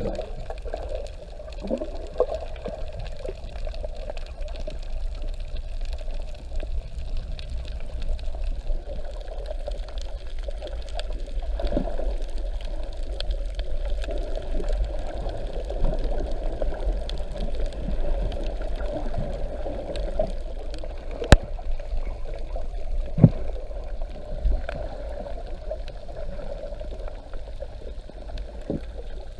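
Water rushing and splashing against a sailboat's hull, with a steady low rumble underneath and scattered small clicks. Two sharp knocks stand out a little over 20 seconds in.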